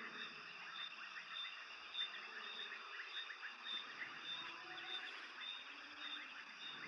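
Night chorus of calling frogs and insects: many short, overlapping calls, with one high chirp repeating about twice a second.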